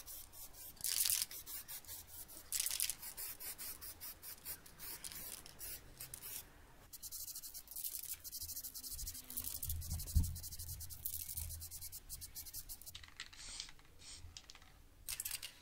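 Aerosol can of silver alloy-wheel spray paint hissing in many short bursts, a few of them longer.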